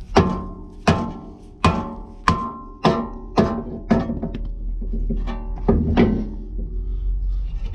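Orange rubber mallet striking a brake rotor that is stuck to the hub, about seven hard blows in quick succession, each with a short metallic ring. A few lighter knocks follow around five to six seconds in as the rotor loosens.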